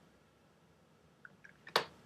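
Quiet pause with a few faint mouth clicks, then one sharp click near the end, between breathy sneezes.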